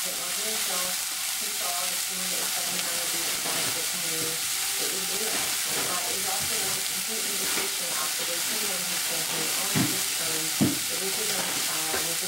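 Diced tofu frying in a little oil in a nonstick skillet: a steady sizzle, with two sharp pops a little under a second apart near the end.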